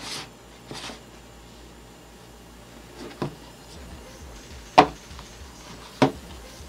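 A small black box being opened by hand: a few separate soft knocks and scrapes as its lid is pulled off and the box and lid are set down. The two sharpest knocks come in the second half.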